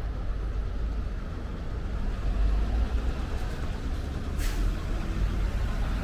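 Steady low rumble of city road traffic, with a short sharp hiss of air about four and a half seconds in.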